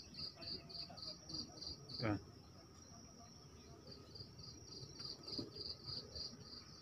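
Forest insects chirping faintly in a high, even pulse of about four chirps a second. The chirping pauses for a second or two after about two seconds, then resumes. A brief call sounds once about two seconds in.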